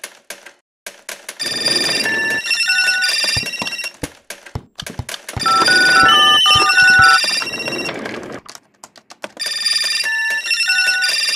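Electronic telephone ringtone: a melody of beeping tones stepping between pitches, ringing in three bursts about two seconds apart, over scattered sharp clicks like keyboard typing.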